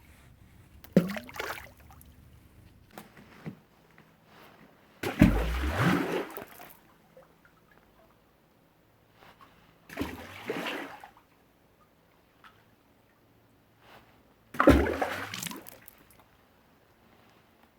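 Stones dropped into water, four times: each a sudden plunk followed by about a second of splashing. The drops about five and fifteen seconds in are the loudest, the one about a second in the smallest.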